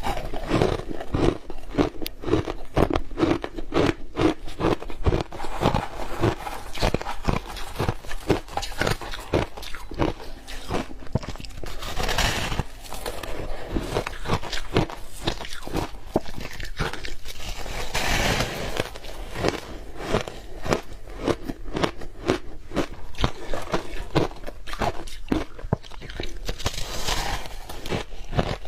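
Close-miked biting and chewing of powdery ice chunks coated in matcha: a rapid, continuous run of crisp cracks and crunches, with three louder, harsher crunches spread through it.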